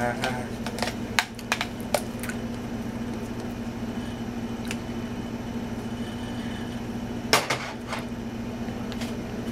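A metal spoon clinks and scrapes against a stainless steel pot of mashed potatoes: several sharp clinks in the first two seconds and a louder clatter about seven and a half seconds in, as the pot is set down. A steady low hum runs underneath.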